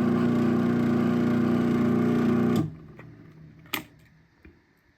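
Craftsman 1/2 hp chain-drive garage door opener running with a steady, a little bit noisy motor hum, then shutting off abruptly about two and a half seconds in as the door reaches the end of its opening travel. A single sharp click follows about a second later.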